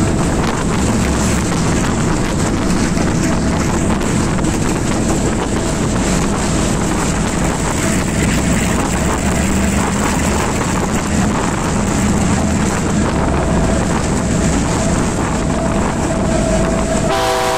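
Class M2c diesel-electric locomotive running at speed, heard from an open window. The engine drones steadily under wind noise on the microphone, and the horn starts to sound just before the end.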